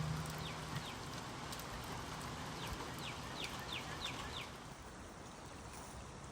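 A bird calling a series of short, quick chirps that slide downward in pitch, about eight in all, bunched near the middle, over a faint steady outdoor hiss. A low hum cuts off about a second in.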